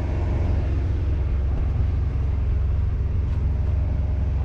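Truck engine idling: a steady low rumble with no change.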